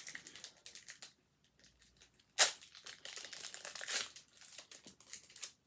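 Foil wrapper of a Pokémon card booster pack crinkling in the hands as it is torn open, with one sharp rip a little before halfway.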